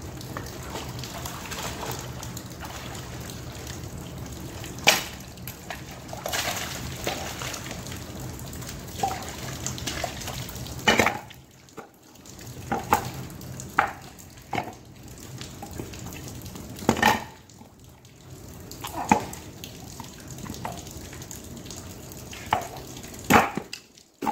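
Groundwater dripping from old pipes under a railway bridge into a river: irregular single plops and splashes, about a dozen, over a steady wash of moving water.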